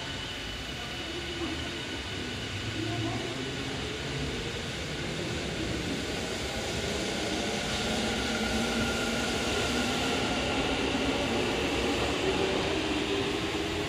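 Yokohama Minatomirai Railway Y500 series electric train pulling out of the station, its inverter-driven traction motors whining in slowly rising tones as it picks up speed. The running noise grows steadily louder.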